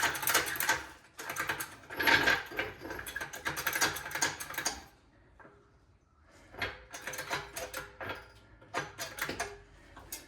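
Metal floor jack clattering and clicking as it is handled and set in place under the car: rapid rattling for several seconds, a brief pause, then a few scattered clicks and knocks.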